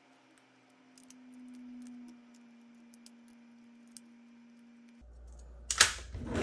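Faint handling of plastic battery-cell holders, with a few light clicks over a low steady hum. Near the end come sharp, loud clacks as the cylindrical LiFePO4 cells and holders are handled and knocked together on the bench.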